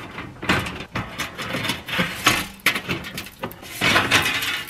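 A car's engine under-shield scraping, rubbing and clattering as the last fasteners come free and it is worked down off the underbody, in a series of irregular scrapes and knocks.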